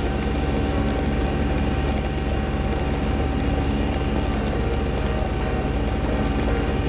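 Kubota B2601 compact tractor's three-cylinder diesel running steadily under load while driving a front-mounted PTO snowblower that is throwing snow. A thin steady whine sits over the engine.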